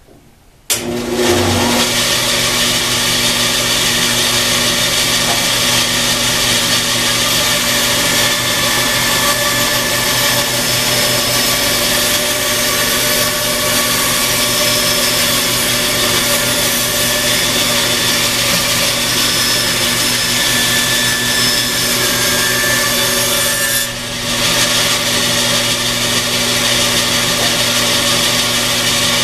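Rebuilt Delta bandsaw switched on on its test run after new upper wheel and thrust bearings, starting under a second in and running steadily with a low motor hum. A board is fed through the blade and cut.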